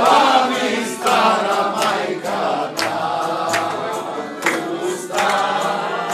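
Many voices singing together with instruments, a group singing along loudly, with scattered sharp clicks.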